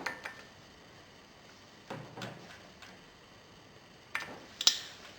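A few light clicks and knocks of small parts and tools being handled, spread out, with the sharpest click near the end.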